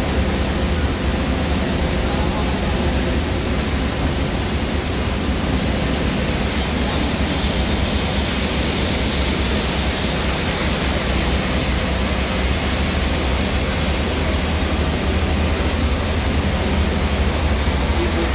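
Inside a GSRTC bus at highway speed in heavy rain: a steady loud rush of rain and tyre spray over a low engine and road rumble.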